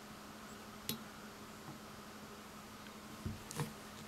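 Quiet room with a faint steady hum and a few soft clicks from fly-tying tools as black thread is wrapped on a fly in a tying vise: one click about a second in, two more near the end.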